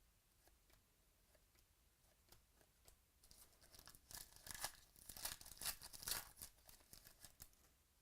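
A trading-card pack wrapper being torn open and crinkled, a crackly stretch of tearing and rustling in the middle, after a few faint ticks of cards being handled.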